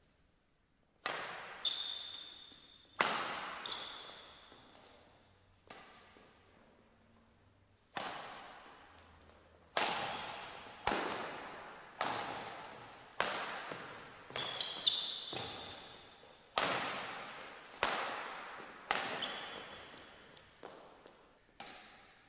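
Badminton rackets striking a shuttlecock in a rally, sharp cracks roughly once a second that echo in a large hall, with a pause of a few seconds after the first few hits. Court shoes give short high squeaks on the mat between strokes.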